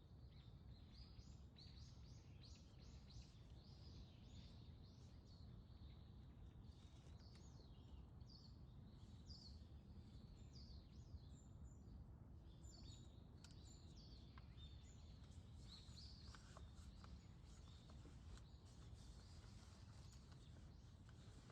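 Small birds chirping and calling in many short, high notes throughout, over a faint, steady low rumble of background noise.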